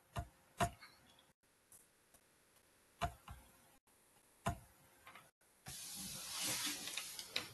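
A handful of faint, separate clicks of a computer being operated through a video-call microphone, then a steady hiss for about the last two seconds.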